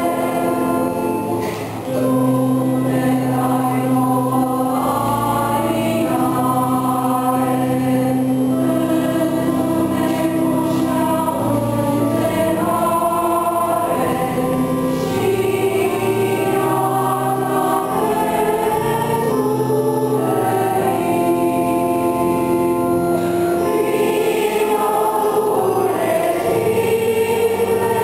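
Church choir singing in several voice parts, long held chords changing slowly. The singing dips briefly about a second in and resumes at two seconds.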